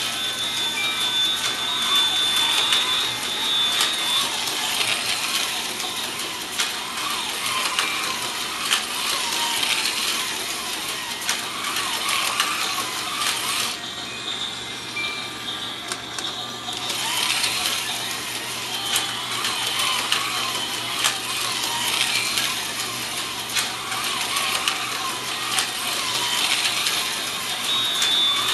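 Small model train running on its track: a steady, rattling mechanical clatter of wheels and motor that swells and fades as the train moves around the layout.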